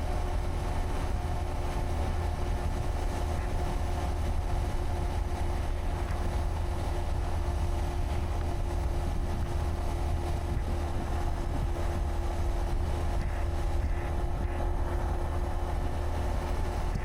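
Honda Monkey 125's single-cylinder four-stroke engine running steadily at an even cruising speed, with a low wind rumble on the microphone.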